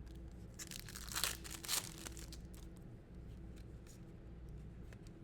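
Foil wrapper of a trading-card pack tearing and crinkling in a few short, faint rustles, the loudest about a second in and just under two seconds in.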